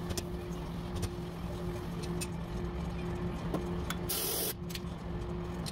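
Dent-pulling work on a car's steel door panel: sharp metallic clicks from the puller and slide hammer over a steady electrical hum, with a short hiss about four seconds in.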